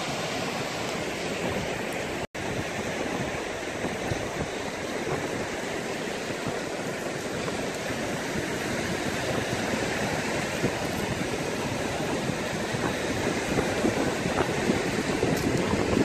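Sea surf washing onto a sandy, rocky shore, a steady rushing noise that cuts out for an instant about two seconds in.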